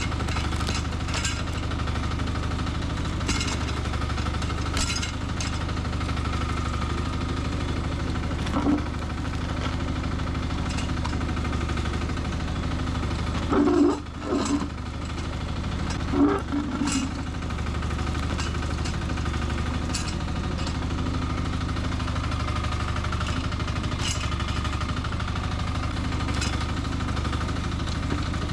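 Nuoman E10 mini excavator running steadily as it works, with scattered sharp knocks and clanks and a cluster of louder ones about halfway through.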